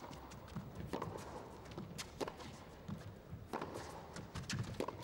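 Tennis rally on a carpet court: racquets striking the ball and the ball bouncing, a string of sharp pocks about a second apart.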